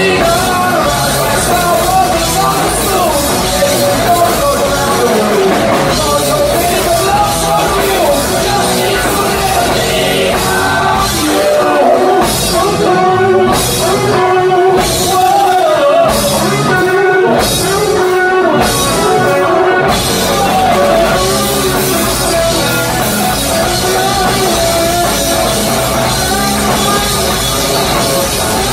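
A rock band playing live and loud: drum kit with cymbal crashes, electric guitar and a singing voice. The cymbal crashes come hardest through the middle stretch.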